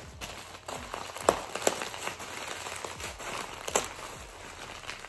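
Plastic bubble wrap crinkling and rustling as it is handled and unwrapped, with a few sharp crackles, the loudest about a second in.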